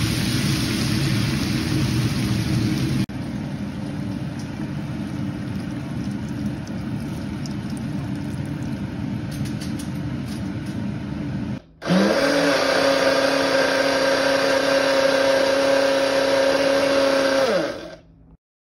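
Chicken stock pouring into a hot nonstick pan of diced pumpkin, onion and carrot, hissing and sizzling for about three seconds, then a quieter simmer with a few small pops. About twelve seconds in, a Hamilton Beach personal blender starts, runs at a steady pitch for about six seconds puréeing the soup, and winds down.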